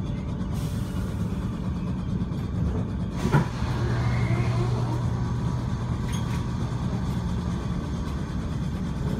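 Merseyrail electric train heard from inside the carriage, its low running rumble ending in a sharp knock about three seconds in as it comes to a stop. A steady low hum follows while it stands.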